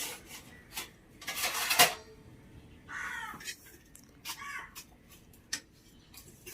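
A crow cawing twice, harsh falling calls about three and four seconds in, among clinks and a short scrape of kitchen utensils.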